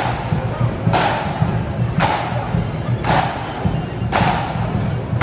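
Marching flute band's bass drum struck in a slow, steady beat, about once a second, each beat ringing out with a crash.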